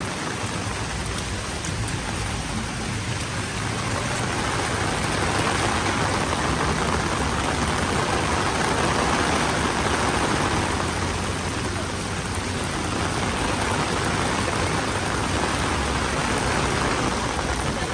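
Steady rain falling and splashing on hard surfaces, growing somewhat louder for several seconds in the middle.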